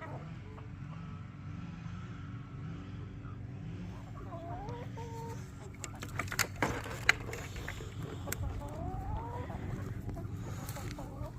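Leghorn chickens clucking with a few rising and falling calls while they eat leaves, with a cluster of sharp clicks about six to seven seconds in.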